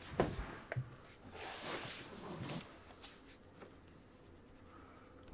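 Pen or pencil scratching on paper, a boy drawing in short, faint strokes that thin out in the second half.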